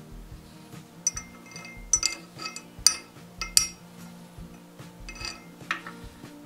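Iron wagon brake fittings, a bolt and a bent rod, clinking against each other and an iron bracket plate as they are handled and tried in place: about six sharp metallic clinks with a brief ring, the loudest two near the middle. Soft background music runs underneath.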